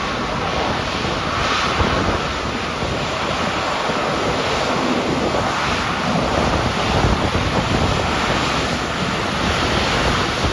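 Strong gusty wind rushing and buffeting against the microphone, a loud, steady roar.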